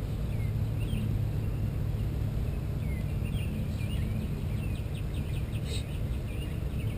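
Birds chirping outdoors over a steady low rumble, with a quick trill of rapid repeated notes in the middle.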